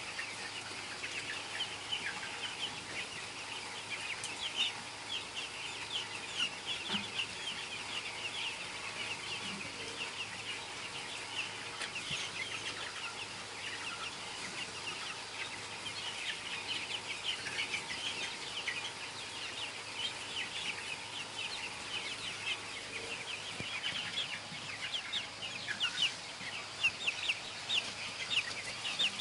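A large flock of broiler chicks, about two weeks old, peeping and chirping over one another continuously.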